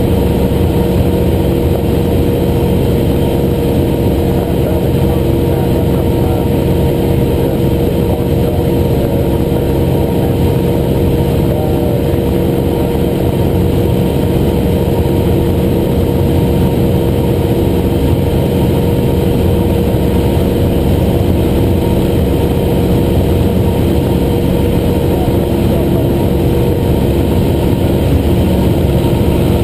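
Cessna 175's piston engine and propeller droning steadily in cruise flight, heard inside the cockpit, with an even pitch throughout.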